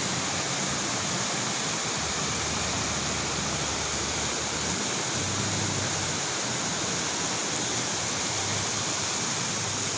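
River rapids: fast, muddy water rushing over and around boulders, a steady, unbroken rush of white water.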